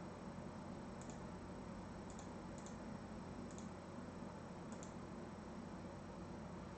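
A handful of faint, sharp computer mouse clicks, some of them doubled, spaced irregularly over a few seconds against a steady low room hum.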